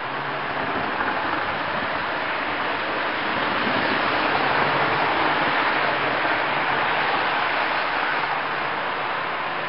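Model trains running on the layout track: a steady rushing rumble of wheels on rail and the whir of the locomotive motors. It swells in the middle as passenger cars pass close by, then eases off.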